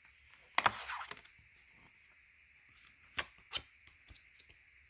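Tarot cards being handled: a short rustling slide about half a second in, then two sharp snaps of cards a little after three seconds and a few light taps, over a steady faint hiss.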